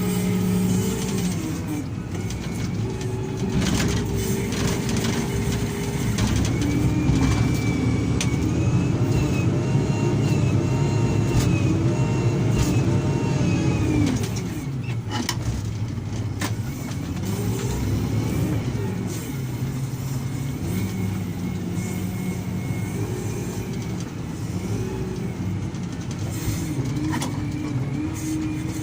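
Heavy construction machine's diesel engine working under load, its pitch rising and falling repeatedly as it revs up and settles. It eases off about halfway through.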